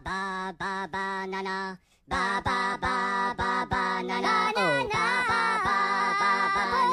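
Music: a song of high-pitched, layered singing voices with no instruments heard, sung in short repeated syllables, with a downward slide in pitch about five seconds in.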